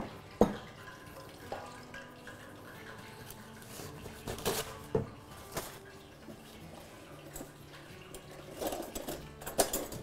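Cutting board and kitchen utensils being knocked and set down on a kitchen counter: a sharp knock about half a second in, a few more around the middle, and a burst of clatter near the end.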